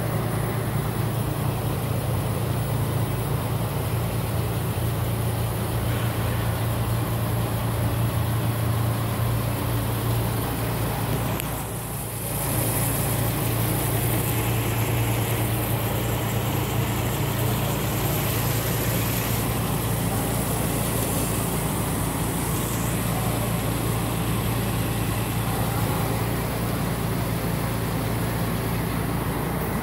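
A steady low mechanical hum that dips briefly about twelve seconds in.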